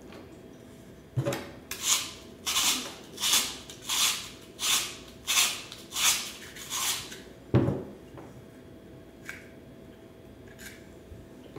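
Cucumber being twisted through a handheld hourglass spiralizer: about ten rhythmic rasping cuts, roughly one and a half a second, as the blade shaves it into noodle strands, followed by a single thump.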